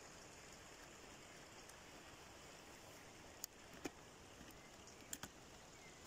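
Near silence: faint steady outdoor background hiss, broken by a few sharp clicks a little past halfway and a quick double click near the end.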